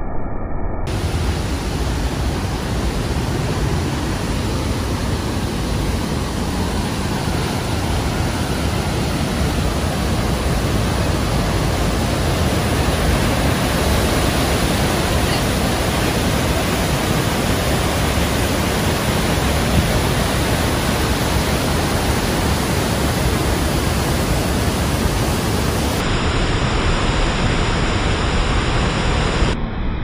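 The Rhine Falls' white water crashing down close by: a loud, steady rush of falling water.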